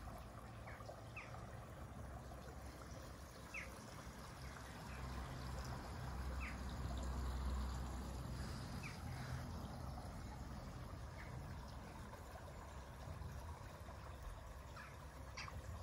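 Faint garden ambience: a steady trickle of water with short bird chirps here and there, and a low rumble that swells in the middle.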